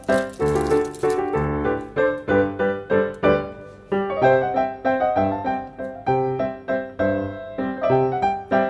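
Background music: a piano tune with a steady, bouncy beat.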